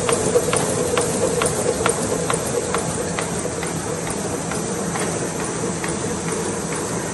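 KBA Rapida 75 five-colour sheetfed offset press running, a steady mechanical hum with a sharp click about twice a second. The clicks grow fainter in the second half.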